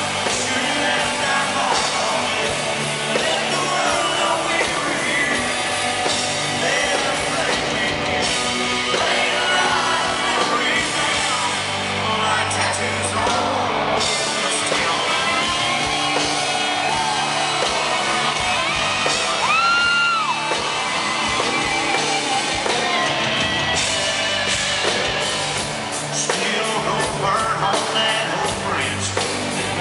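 Live country-rock band playing loudly, electric guitars and keyboards under a sung lead vocal. About twenty seconds in, a single held note rises and falls above the band.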